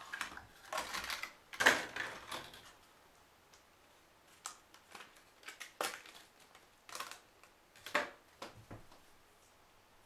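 A series of light clicks and clatters from handling DDR3 memory modules while fitting them into the motherboard: a busy cluster at the start, then single clicks every second or so.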